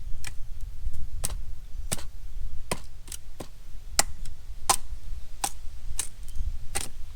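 Kindling being split for a campfire: about ten sharp chopping strikes of a blade into wood, at a steady pace of roughly one every 0.7 seconds.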